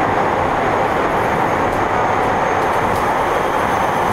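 Steady onboard running noise of a Nagoya subway N3000 series train (IGBT-VVVF) underway in the tunnel: a dense, even rumble of wheels on rail with a faint high steady whine above it.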